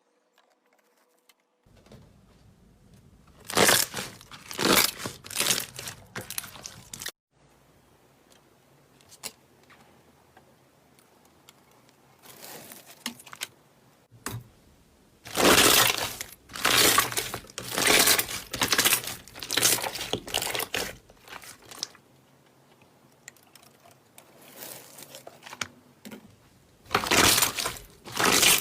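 Slime being squeezed and pressed by hand, giving bursts of crackling and crunching in three spells: a few seconds in, around the middle, and near the end. Softer handling sounds come between the spells.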